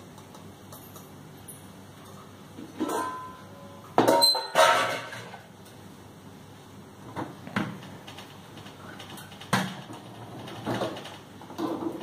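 Dishwasher racks sliding on their rails and metal vessels clattering and knocking against the wire racks, in a few separate bursts; the loudest clatter, with a brief metallic ring, comes about four seconds in.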